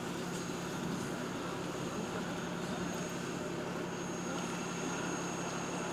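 City bus engine running with a steady low hum.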